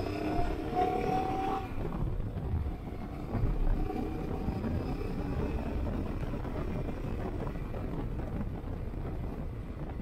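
Motorcycle riding on the road: steady engine and road-and-wind noise, with an engine tone rising slightly in pitch over the first two seconds.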